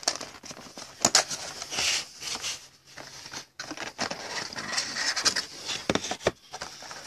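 Cardboard trading-card box being opened and handled by hand: flaps pulled and an inner cardboard insert slid out, with irregular scrapes, rustles and light clicks.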